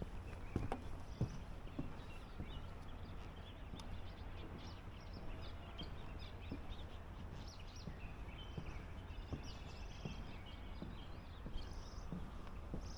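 Small birds chirping and calling intermittently over a low steady rumble, with a couple of soft knocks about a second in.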